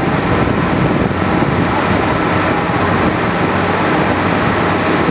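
A motorboat's engine running steadily under way, mixed with the rush of water and wind.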